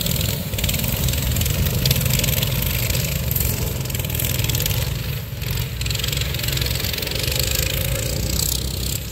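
Box-stock racing minibikes' small engines running together as they race around a tight dirt track, making a steady mechanical drone.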